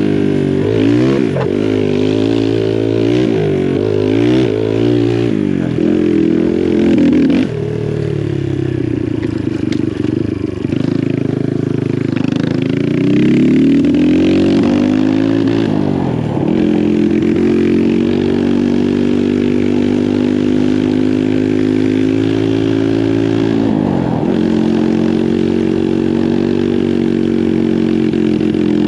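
Kawasaki KLX140G dirt bike, its single-cylinder four-stroke engine bored out to 170 and fed by a VM26 carburetor, being ridden. Its pitch rises and falls quickly as the throttle is worked over the first few seconds. Then it climbs steadily, drops sharply at a gear change, holds a steady cruise and drops again at a second shift. The rider says the engine is running too rich on its current jetting.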